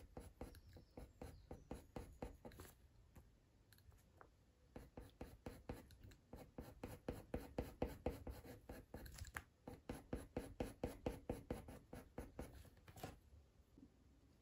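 Faber-Castell Polychromos coloured pencil scratching in fast, short back-and-forth blending strokes on hot-press watercolour paper, about five strokes a second. It pauses briefly about four seconds in and stops near the end.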